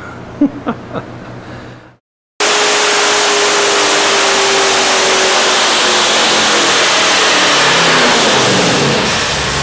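Nelson Racing Engines mirror-image twin-turbo V8 with Alien intake manifold running loud, cutting in abruptly about two seconds in after a brief silence. A whine in it slowly falls in pitch.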